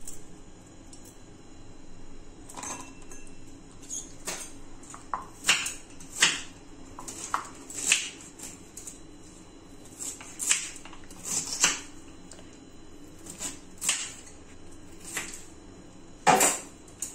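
Kitchen knife cutting and scraping ginger on a plastic chopping board, with garlic cloves and pieces clinking into a steel mixer-grinder jar: irregular clicks, taps and knocks, the loudest knock near the end.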